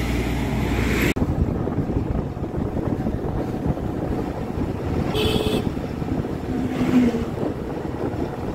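A car driving on a rough road, its engine and road noise making a steady low rumble, with wind on the microphone. The sound changes abruptly about a second in, and a brief high tone sounds about five seconds in.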